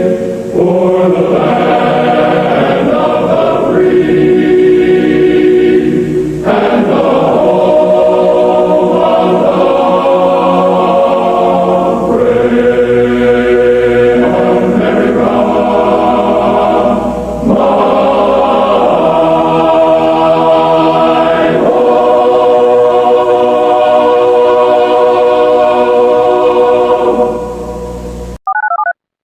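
Choral music: voices hold slow, sustained chords that change every five seconds or so, then fade out near the end. A brief electronic tone sounds just before the end.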